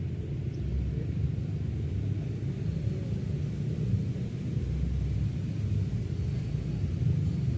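Wind buffeting the microphone outdoors: a steady, fluctuating low rumble.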